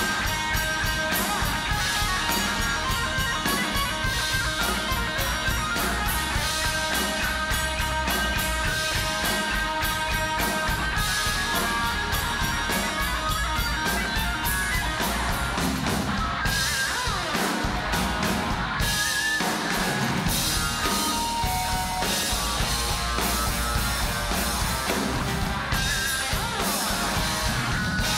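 Live rock band playing: electric guitar over a drum kit at a steady beat, thinning out briefly past the middle before the full band comes back in.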